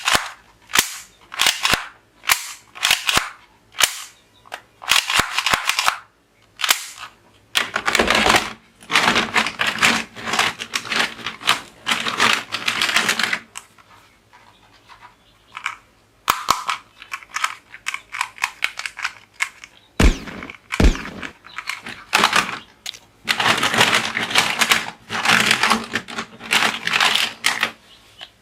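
Toy guns being fired over and over. There are sharp single clicks at first, then rapid rattling bursts of fire, with two dull thumps part way through.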